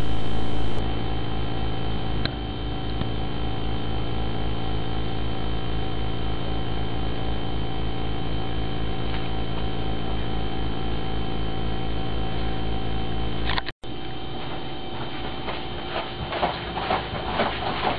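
Steady electrical hum made of several held tones. Near the end it breaks off for an instant, then returns quieter with scattered clicks and rustling, which grow busier toward the end.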